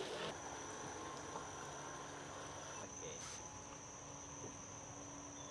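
Insects, crickets or the like, calling in a steady, continuous high-pitched drone over faint outdoor background noise.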